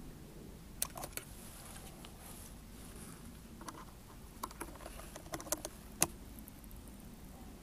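Scattered small clicks and crackles of a soft plastic fuel squeeze bottle being handled and squeezed while its tube fills a model diesel engine's tank, over a faint steady background. The clicks come in small clusters about a second in, then between four and six seconds in.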